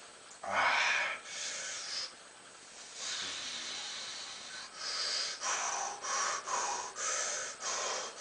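A man breathing hard from exertion. A loud exhale comes about half a second in, then a long breath, then quick, short puffing breaths about two a second toward the end.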